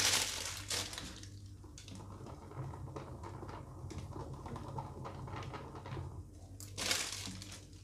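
Plastic piping bag rustling and crinkling in the hand as cream is squeezed out around the cake's edge, with two louder rustles, one at the start and one near the end.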